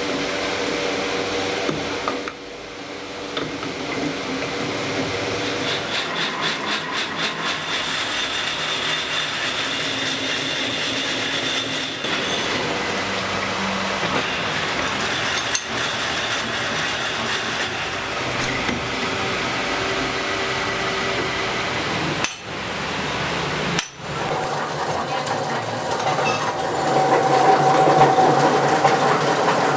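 Machine-shop sounds of a metal lathe running as steel bar stock is turned and threaded, with metallic clinks and knocks, changing abruptly at several cuts and growing louder near the end.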